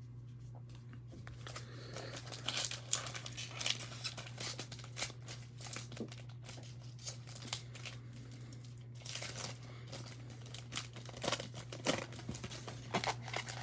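Trading-card pack wrapper crinkling and tearing as it is handled and opened, in irregular crackles, over a steady low hum.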